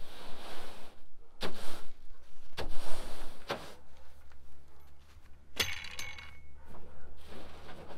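Push broom sweeping out a pickup truck bed: several scraping swishes of the bristles, then a sharp knock with a brief ring a little past halfway.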